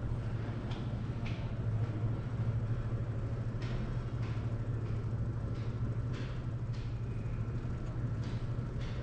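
Steady low indoor hum of a building, with a few faint taps scattered through it.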